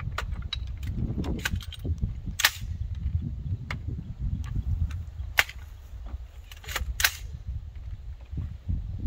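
Rifle shots fired from behind a car: three loud, sharp shots about two and a half, five and a half and seven seconds in, with fainter sharp cracks scattered between them.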